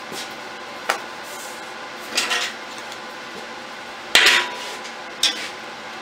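Metal pieces clinking and knocking as a bent metal rod is handled and set down on a steel saw blade: four separate knocks, the loudest about four seconds in with a brief ring after it.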